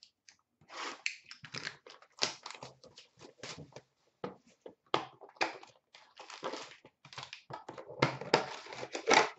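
Irregular crinkling, rustling and tapping as a 2013-14 Panini Playbook hockey card box is handled and opened, its packaging crackling in uneven bursts.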